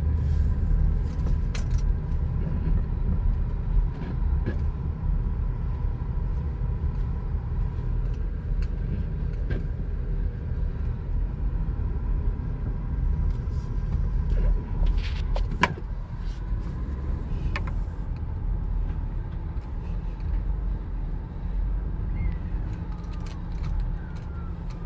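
A car driving, a steady low rumble of road and engine noise with occasional small clicks and rattles.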